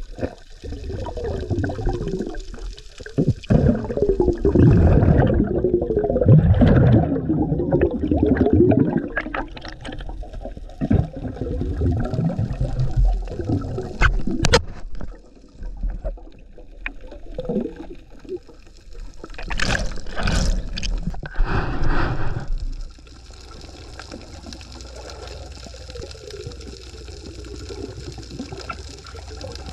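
Water sloshing and bubbling, heard underwater and muffled, with a few sharp knocks. After about twenty-three seconds it settles to a quieter steady hiss.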